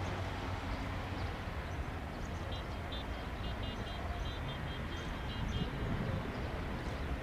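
Steady low rumble of an Embraer ERJ-195's General Electric CF34-10E turbofan engines.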